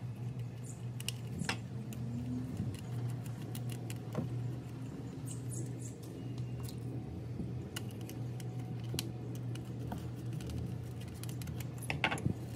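Scattered light clicks and taps of small plastic parts and screws being handled while the singing fish's plastic body is reassembled, with a quick cluster of clicks near the end. A steady low hum runs underneath.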